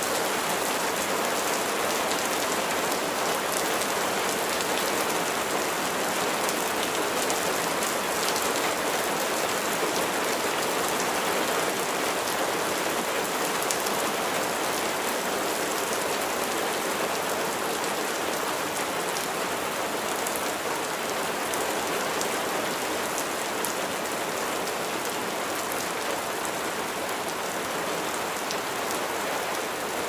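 Steady rain falling, an even hiss of many drops with fine individual drop hits throughout.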